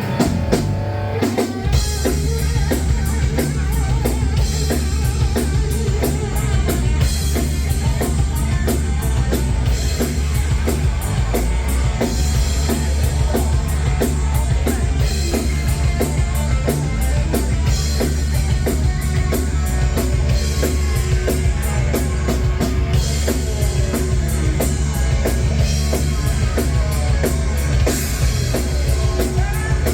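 Rock music: a drum kit keeps a steady, driving beat over a heavy bass line, with electric guitar.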